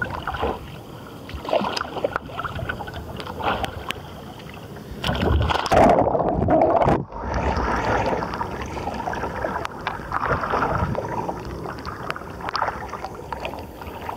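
Water sloshing and splashing around a wooden strip-built sea kayak as the paddler braces and rolls it. About five seconds in the splashing grows loudest and turns muffled, as the deck-mounted microphone goes under water. Shortly after seven seconds it comes back up, with water streaming off the deck and the wooden paddle, then the paddle dipping in strokes.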